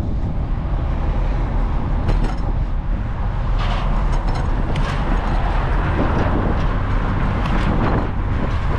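Steady wind rumble on the microphone of a camera on a moving bicycle, mixed with street traffic noise and a few short sharp rattles.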